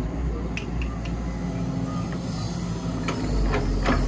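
Excavator's diesel engine running steadily, with several sharp metal clanks. The engine grows louder about three seconds in.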